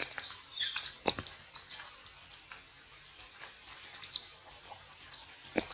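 Twigs and leaves rustling and snapping as a macaque moves on a tree branch, with scattered clicks, the sharpest about a second in and near the end. A few short high chirps come about half a second and a second and a half in.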